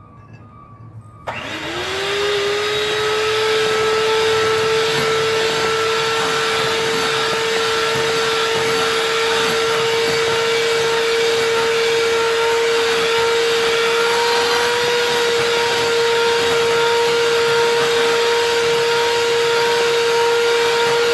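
Electric hand mixer switched on about a second in. Its motor whines up to speed, then runs steadily as the beaters whip cream cheese frosting.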